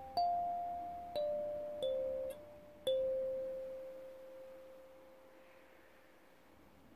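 Clear acrylic kalimba with metal tines plucked in a slow melody: four notes in the first three seconds, the last one left to ring on and fade away.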